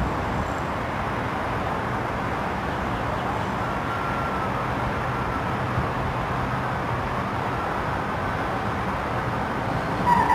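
Steady hum of distant city road traffic, with a faint high held tone in the middle and a brief louder sound at the very end.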